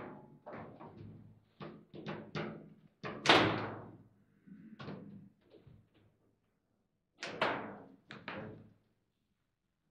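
Foosball table in play: a run of hard plastic knocks and thunks as the ball is struck by the rod figures and bangs against the table. The loudest bang comes a little after three seconds in, and another cluster of knocks comes about seven seconds in.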